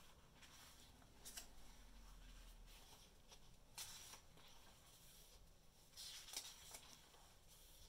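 Faint rustle of paperback book pages being turned by hand: a few brief papery swishes, the last near the end the loudest, over near-silent room tone.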